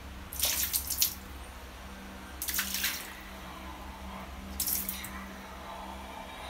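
Water splashing into a plastic bucket in three short spurts about two seconds apart, over a steady low hum.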